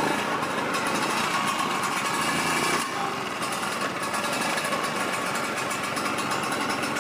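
Classic Vespa scooter's two-stroke single-cylinder engine running steadily through a stock (standard) exhaust, a little quieter from about three seconds in.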